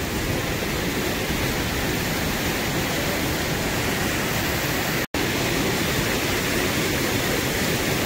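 Steady rushing of a nearby mountain waterfall and stream, an even wash of water noise. The sound drops out for a split second about five seconds in.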